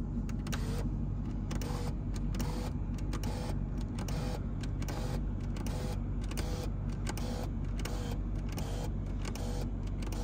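Car's electric sunroof motor running as the glass panel slides open, with a series of short clicks, about two a second, over the steady low hum of the idling engine.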